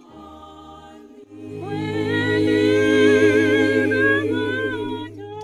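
A group of voices singing unaccompanied, holding a long sustained chord with a wavering pitch. A soft low hum opens it, and the full voices swell in about a second and a half in.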